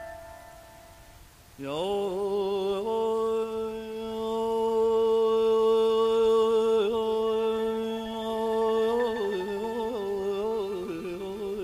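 A fading instrument note dies away, then a little under two seconds in a male voice enters with an upward slide into a long held note with vibrato. Near the end it breaks into quick, wavering melismatic ornaments (tahrir), in the style of Persian classical avaz singing.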